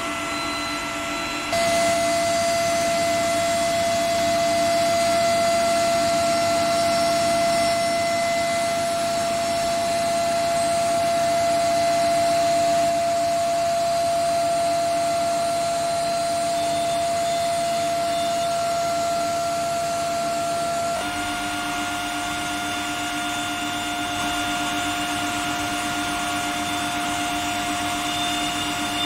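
Induction quenching machine running: a steady, high whine over a constant hiss. It gets louder about a second and a half in, and the whine steps slightly higher in pitch about twenty seconds in.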